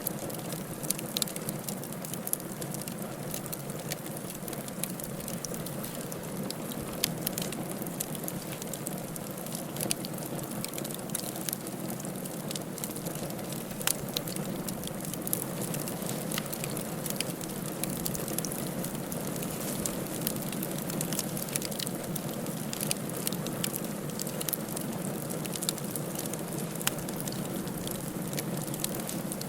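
Firewood burning in a fireplace: a steady low rush of flame with scattered sharp crackles and pops, irregular, a few a second.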